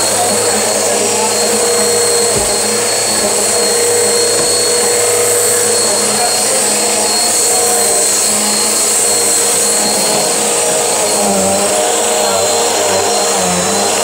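Bissell vacuum cleaner running steadily as it is pushed over a rug: an even rushing hiss with a constant high whine from the motor.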